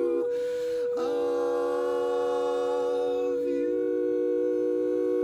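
Barbershop quartet singing a cappella, holding close-harmony chords: one voice sustains a steady note while the others move to a new chord about a second in and again past the middle.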